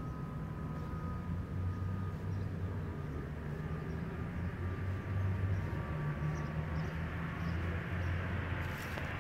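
Low, steady rumble of distant road traffic, with the tyre noise of approaching cars beginning to grow near the end.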